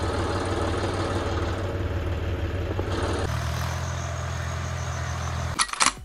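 Tractor engine running steadily while pulling a plough through the soil. The hum turns steadier and deeper about three seconds in. A few brief clicks come just before the end.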